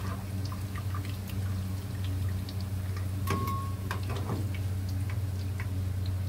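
Hot frying oil in a wok crackling and sizzling with small scattered pops, and oil dripping back into the pan from the freshly fried corn fritters held in a wire skimmer above it. A steady low hum runs underneath, and a brief steady tone sounds a little past three seconds.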